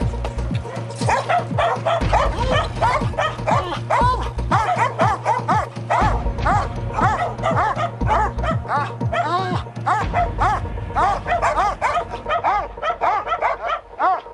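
Dogs barking over and over in quick succession, several barks a second with some at different pitches, over background music.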